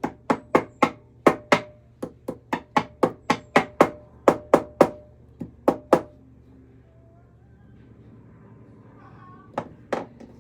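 Hammer tapping a braided-wire ring frame on a metal ring mandrel to shape it: about twenty quick, even strikes at roughly four a second, each with a short ring, then a pause and two more taps near the end.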